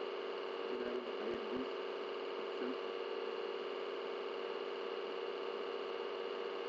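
Steady electrical hum with hiss from the recording, with a few faint brief sounds about a second in.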